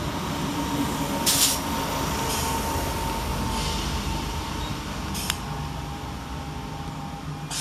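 Class 319 electric multiple unit moving along the platform, with a steady electric motor whine over the rumble of its wheels on the rails. A few brief knocks come through, the loudest about a second and a half in.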